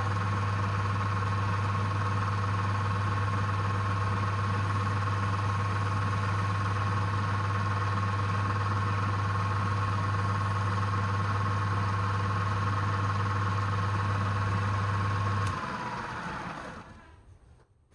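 Woodturning lathe's electric motor running steadily with a low hum and a high whine. It is switched off about three-quarters of the way through: the hum cuts out at once, the whine falls in pitch and the lathe spins down to a stop within a second or two.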